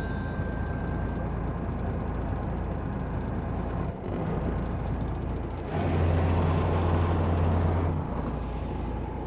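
Fishing boat's engine running at idle, a steady low hum that grows louder for about two seconds past the middle.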